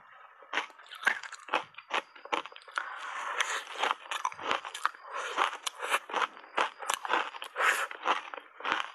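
Ice coated in matcha powder being bitten and chewed: a quick, irregular run of sharp crunches.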